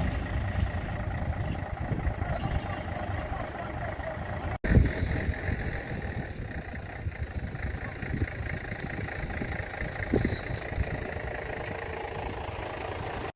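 Steady engine noise from heavy vehicles idling, with a few scattered knocks and a brief gap about four and a half seconds in.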